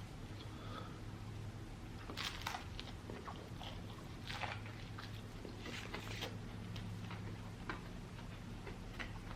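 A person chewing a crispy fried chicken sandwich close to the microphone: irregular wet mouth smacks and crunches, over a steady low hum.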